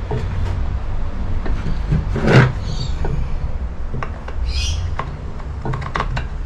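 Metal knocks and scrapes as an aftermarket scooter stand is worked onto the freshly repaired stand tab of a Minarelli two-stroke motor, the loudest about two seconds in, with a couple of short high chirps.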